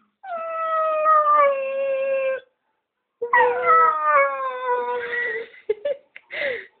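Dogo Argentino howling: two long howls, each sliding down in pitch, with a pause between them, then a few short noises near the end.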